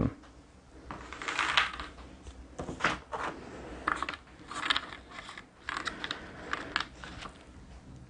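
Cardboard board-game tokens being handled and set down on a table: irregular small clicks and rustles.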